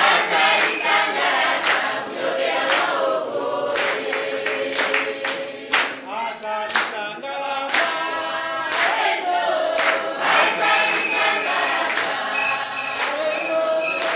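A group of men and women singing together without instruments, clapping in time about once a second.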